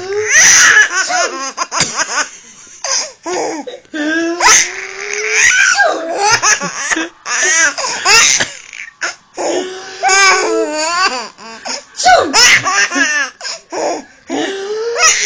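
A five-month-old baby laughing in repeated fits of rapid, pulsing chuckles. A new bout comes every second or two, with short breaks for breath between them.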